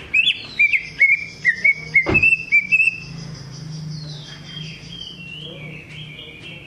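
Cucak ijo (green leafbird) song: a quick run of about ten loud, hooked whistled notes over the first three seconds, then softer, high twittering.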